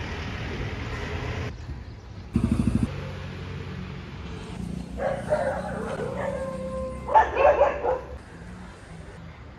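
A pack of stray dogs barking and yelping, strongest about five seconds in and loudest about seven seconds in, over a steady traffic hum. A short fast rattle comes about two seconds in.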